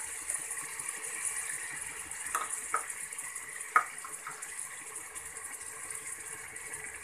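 Steady high hiss of mutton, onions and tomatoes sizzling in oil and a little water in an aluminium pressure cooker. A few light taps of a metal spoon against the pot come in the middle, the sharpest about four seconds in.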